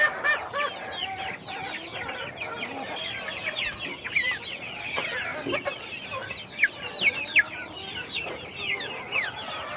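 A crowd of young chicks peeping: many short, high, falling chirps overlapping continuously.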